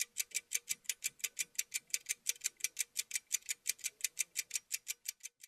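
Clock ticking sound effect: sharp, high ticks in an even, quick run of about six a second, growing fainter and stopping near the end.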